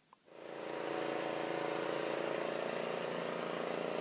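An engine running steadily at a constant speed, fading in just after the start.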